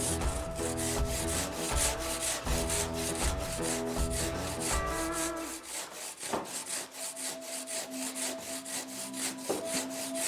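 A handsaw cutting through the soft stone of a wall, with quick, even rasping strokes, about three to four a second. Background music plays underneath.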